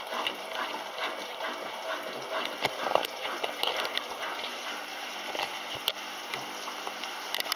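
Kelvinator K605 washing machine running, with water gushing and splashing inside it and irregular small clicks and knocks over a steady rush.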